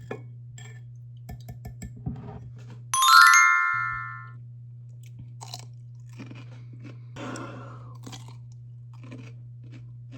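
Close-up crunching and chewing of whole dill pickles, in scattered bites over a steady low hum. About three seconds in a bright chime rings out loudly and fades over about a second.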